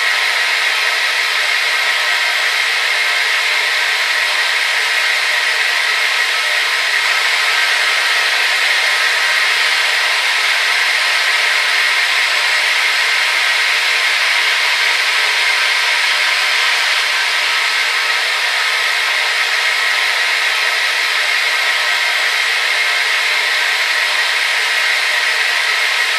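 Hair dryer running steadily: an even, unbroken rush of airflow with a faint motor whine through it.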